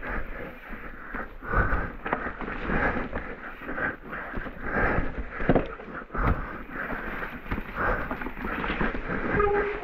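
A mountain biker's heavy breathing, about one breath a second, over a steady low rumble of riding noise on a wet, muddy trail, with a sharp knock about halfway through.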